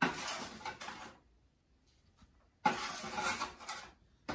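Spatula scraping roasted squash and zucchini slices across a baking sheet: two scrapes of about a second each, the second starting about two and a half seconds in, with a short knock at the very end.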